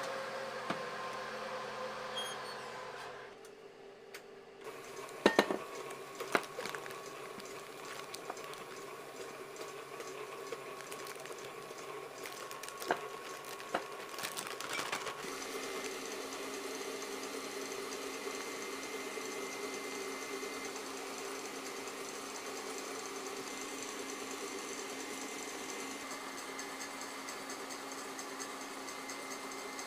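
Steady hum of kitchen machinery, with a few sharp knocks about five to fourteen seconds in.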